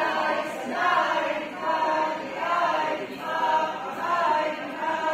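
A group of voices singing a chant together in short phrases that rise and fall, roughly one phrase a second, with no drums or gongs heard.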